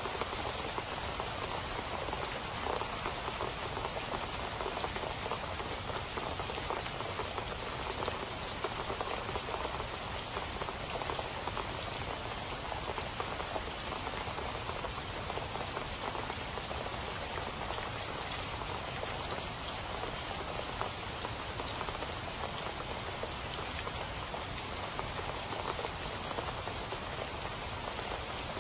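Heavy rain splashing into standing water close by: a steady, dense patter of countless drop impacts that holds even throughout.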